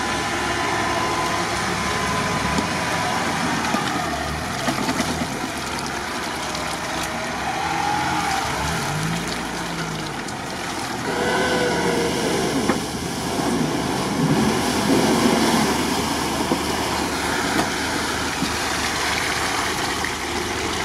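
A 4x4 SUV's engine revving up and down as it drives through a deep muddy rut, tyres churning mud and splashing through water.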